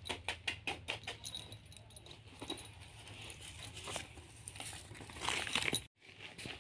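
Paper banknotes crinkling as they are set down, then an otter scrabbling and pattering over a cloth bed cover around the money: a quick run of light clicks at first, soft rustling, and a louder rustle near the end.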